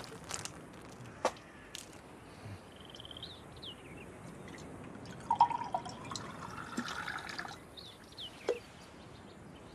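Wine being poured into a metal goblet, the pour sounding loudest in the middle of the clip, with a few sharp clinks of the vessels.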